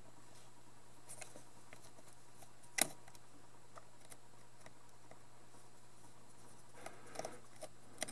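Small screwdriver working the base-plate screws on a die-cast model locomotive chassis: faint scattered clicks of the tip on the screws, one sharp metal click about three seconds in, and a few quick small clicks near the end.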